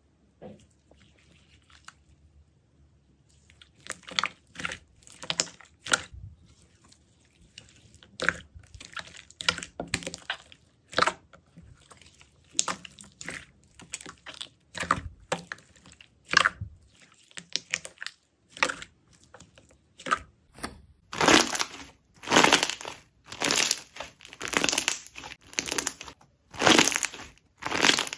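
Jelly slime being squeezed and pressed by hand, giving short crackling, crunching squishes. After a few quiet seconds the squishes come in an uneven run, then turn louder and steadier, about one a second, near the end.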